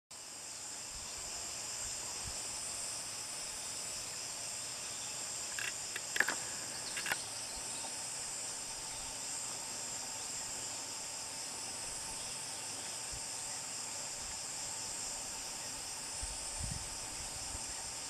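Steady, high-pitched chorus of rainforest insects, with a few brief sharp clicks about six to seven seconds in and a soft low thump near the end.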